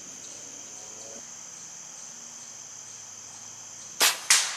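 Diana Bandit .22 PCP air pistol firing one shot near the end, followed about a third of a second later by a second sharp crack as the pellet strikes a can downrange. Crickets chirp steadily in the background.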